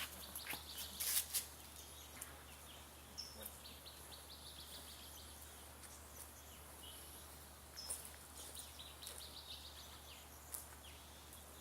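Faint outdoor ambience with scattered short, high bird chirps and a few sharp clicks in the first second or so.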